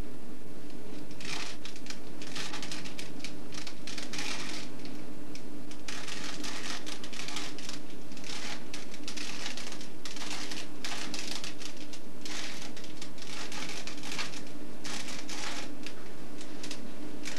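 Plastic puzzle cube, Rubik's type, turned fast in the hands: runs of quick clicking twists a second or two long with short pauses, starting about a second in.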